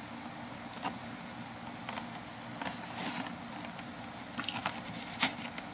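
Faint steady hiss with a few soft clicks and rustles of handling, one about a second in and a small cluster near the end.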